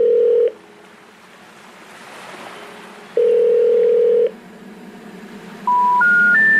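Telephone call tones: a steady ringback tone sounds twice, about a second each, with faint hiss between. Near the end come three short beeps, each higher than the last, the special information tone that comes before a number-not-in-service recording.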